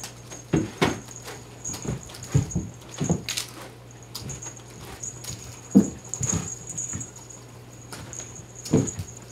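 Cats jumping and landing on carpet: a string of soft, dull thuds at irregular intervals, the sharpest a little past halfway and near the end, with paws pattering and brief rustles in between.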